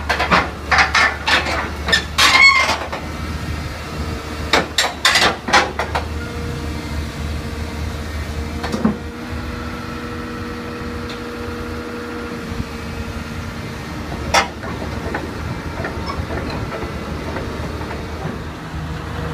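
Caterpillar 320D excavator's diesel engine running as its steel tracks clank over the trailer ramps and deck. The first six seconds hold a rapid run of sharp metallic clanks, then the engine settles to a steady hum, with two more single clanks later.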